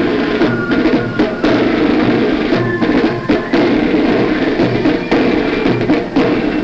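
Military band march music with a steady bass drum beat under held brass-like notes.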